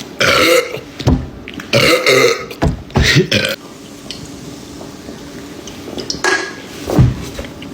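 A man belching repeatedly: a string of burps, the last and loudest about seven seconds in.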